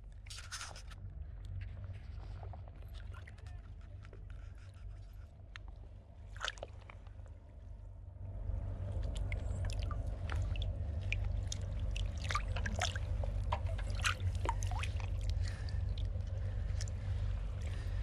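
Shallow seawater sloshing and splashing around wading legs and hands, over a steady low rumble. From about eight seconds in it grows louder, with many small splashes and clicks as hands reach into the water to grab and cut seaweed.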